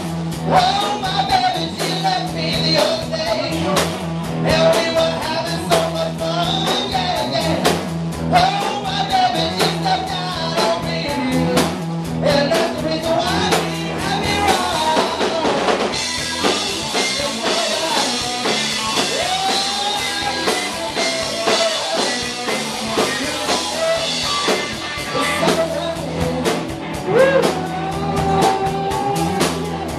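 A live rock band playing a blues-rock number: electric guitar and drum kit keep a steady beat under a bending, wavering lead melody.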